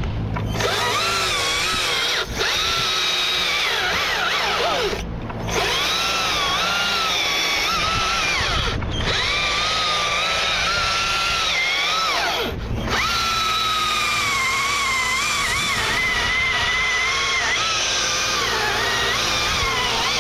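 Husqvarna T542i XP battery top-handle chainsaw running under the trigger and cutting, its high electric whine sagging in pitch under load and recovering. The sound stops briefly four times as the trigger is let off.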